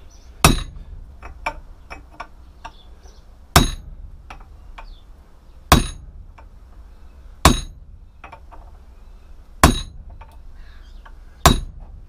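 Hammer driving a steel chisel into the welded seam of a microwave oven transformer's laminated steel core: six hard metal-on-metal blows about two seconds apart, each with a short ring, and lighter taps between them.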